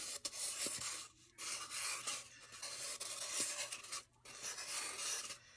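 Sharpie marker drawing on a rain-stick tube: scratchy rubbing strokes as long bean shapes are drawn, in several stretches with short pauses between them.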